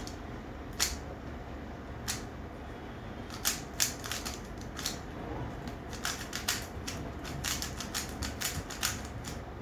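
Plastic Rubik's Cube being twisted at speed: irregular sharp clicks of its layers turning, sparse at first and coming thick and fast for the last few seconds as the solve nears its end.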